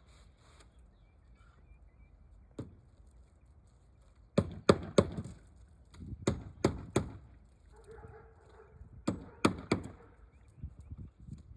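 Hammer blows on a shingle roof, three quick strikes at a time in three groups with pauses between, then a few lighter taps near the end.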